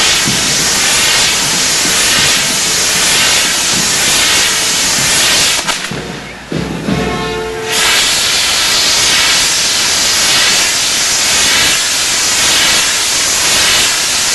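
Firework set pieces on a frame, spinning fire wheels and fountains, giving off a loud, steady rushing hiss. The hiss drops away for about two seconds midway, where a brief pitched tone shows, then comes back at full strength.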